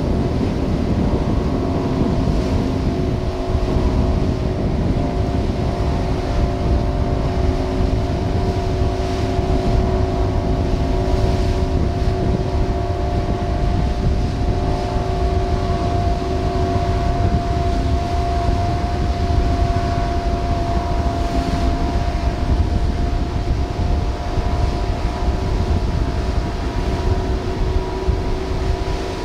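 A motorboat engine running steadily with a constant hum, over a low rumble of wind noise.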